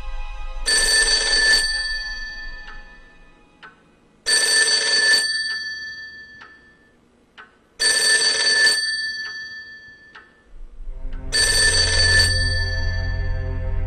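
Black rotary desk telephone's bell ringing four times, each ring about a second long and about three and a half seconds apart, with nobody answering. Low music plays underneath and swells near the end.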